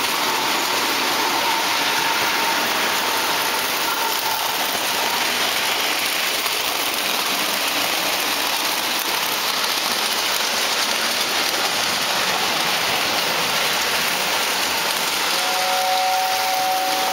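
Lionel O-gauge model trains running on three-rail metal track: a steady rushing noise of wheels and motors. About 15 seconds in, a two-note toy train whistle starts and holds.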